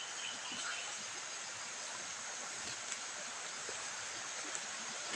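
Steady, even forest ambience hiss, with a faint steady high drone and a few faint ticks and crackles, as of footsteps on leaf litter while walking.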